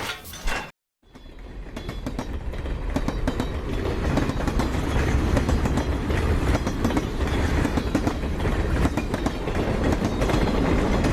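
A brief separate sound effect ends just after the start; after a short silence a train rolling on rails fades in about a second in, with a steady low rumble and dense wheel clatter that builds over a few seconds and then holds steady.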